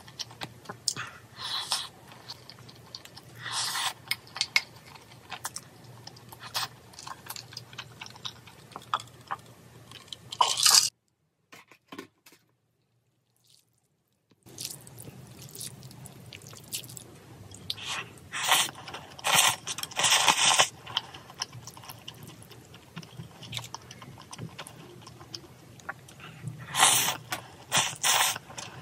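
Close-miked eating sounds: chewing and smacking on braised chicken and noodles, with short clicks of chopsticks against the bowl. The sound drops out briefly about 11 s in, then resumes with chewing and noodles being slurped.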